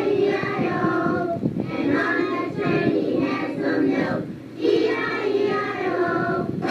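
A song: voices singing over musical accompaniment, with a short break in the singing about four seconds in.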